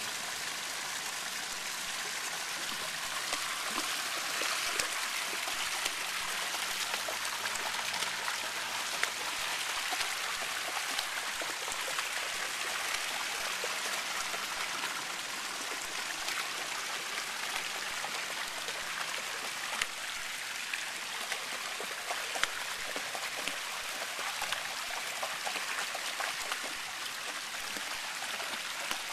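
Shallow water running steadily over a stone moat floor, with many small splashes and drips as a Samoyed wades through it.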